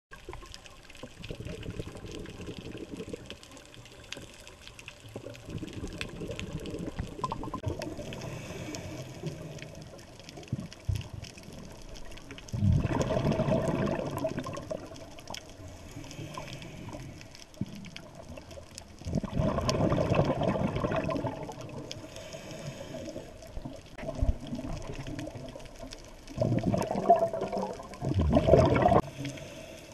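Scuba diver's exhaled bubbles gurgling out of the regulator in loud bursts of a second or two, about every seven seconds, three times, with a quieter water hiss between breaths, heard through a GoPro underwater housing.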